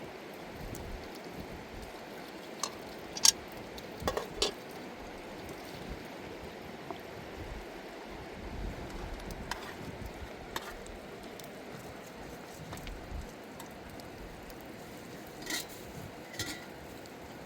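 Steady rush of a river, with a handful of sharp clinks and knocks of handled objects scattered over it, the loudest about three seconds in.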